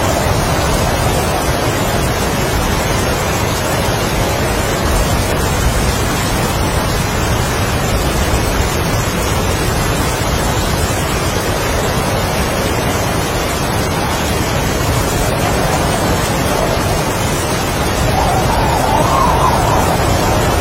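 Strong wind and heavy rain in a steady rush, with a wind howl that rises and falls in pitch, swelling again near the end.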